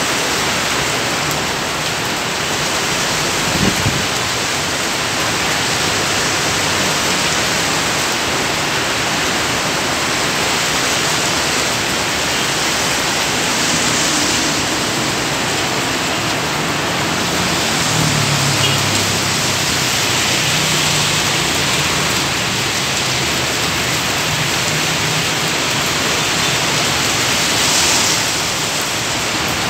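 Heavy rain pouring steadily as a dense, loud hiss. A short knock comes about four seconds in, and a low hum rises under the rain for several seconds past the middle.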